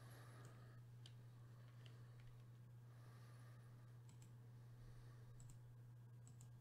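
Near silence: a steady low hum with a few scattered faint clicks.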